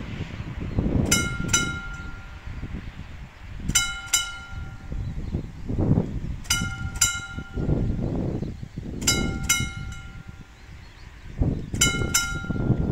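Mechanical level-crossing warning bell (Läutewerk) striking in pairs of ringing strokes, one pair about every two and a half seconds, while the crossing's barriers are down.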